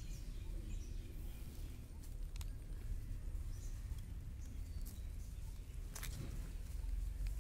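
Dry leaf litter crackling in a few sharp snaps, about two and a half and six seconds in, as a kitten moves over it while worrying a snake, over a steady low outdoor rumble.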